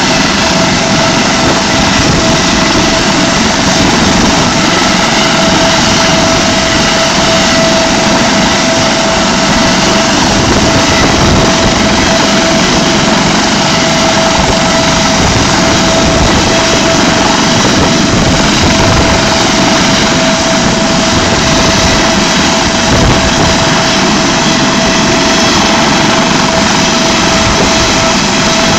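Air ambulance helicopter running steadily on the ground: a constant loud turbine whine over dense rotor and engine noise, with no change in pitch or level.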